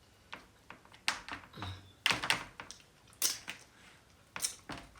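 Close-miked eating sounds: an irregular run of sharp wet clicks and smacks, about eight in all, the loudest cluster about two seconds in.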